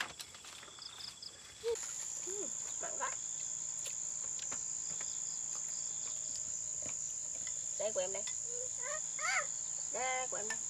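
Insects trilling in one steady, high-pitched unbroken note that starts about two seconds in. Near the end a small child's voice sounds a few short times.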